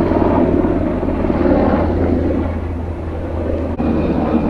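Helicopter passing low overhead, loud, its rotor blades making a rapid, steady chop.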